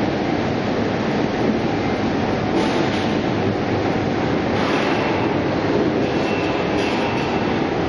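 Potato processing line machinery running: the steady mechanical noise of a brush-roller potato washing and peeling machine and its belt conveyors.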